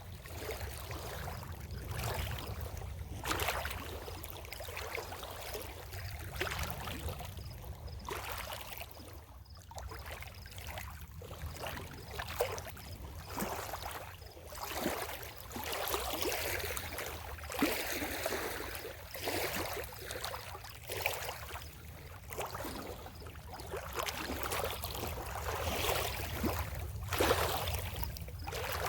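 Water on a lakefront lapping in irregular small splashes that swell and fade every second or so, over a steady low rumble.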